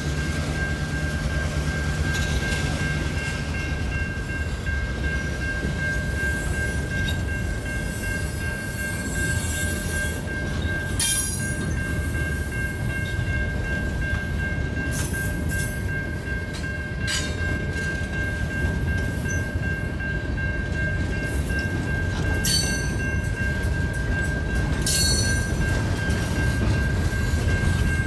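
Train rolling past: a steady rumble of wheels on rail with a thin high whine, and several brief sharp metallic squeals or clanks from the cars.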